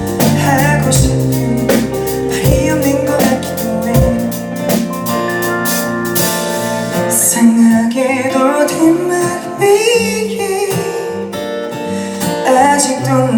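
Live band music: guitar, bass and drums with a sung vocal line.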